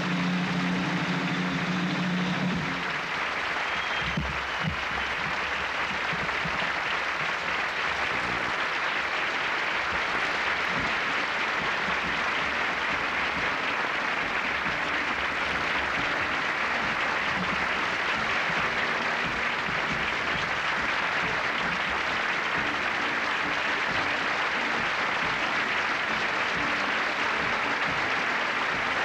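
Theatre audience applauding steadily, over the end of the show's closing choral music, which stops about three seconds in.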